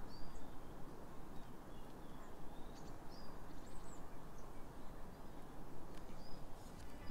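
Outdoor ambience: a steady low rumble of open-air noise, with a few short bird chirps scattered through it.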